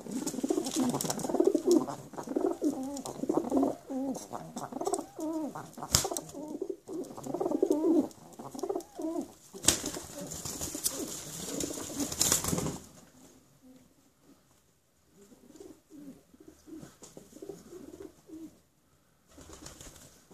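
Feral pigeons cooing at close range over noisy wing flaps and scuffling, with two sharp knocks about 6 and 10 seconds in. The cooing and flapping die down after about 13 seconds, leaving softer coos.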